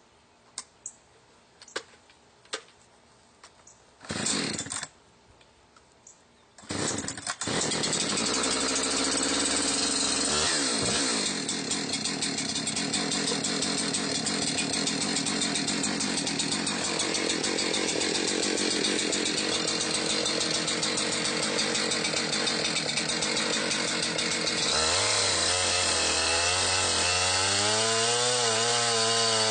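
A few light knocks and a short burst, then a two-stroke chainsaw starts about 7 s in and runs at full throttle, ripping a cherry log lengthwise in a chainsaw mill. From about 25 s in the engine note drops lower and wavers as the saw works under load in the cut.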